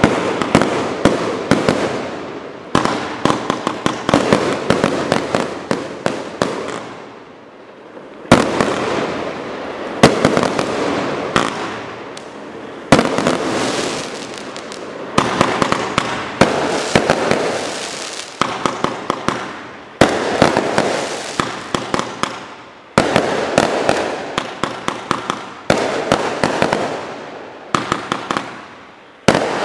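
135-shot compound consumer (1.4G) fireworks cake firing: volleys of sharp shots and bursts, several a second, coming in waves every few seconds with a continuous noisy wash between them.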